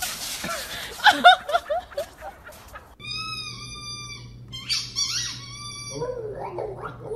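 Voices shouting in the first couple of seconds, then a dog whining in two long high-pitched whines, followed by lower, wavering grumbling vocalizations near the end. A low steady hum runs underneath.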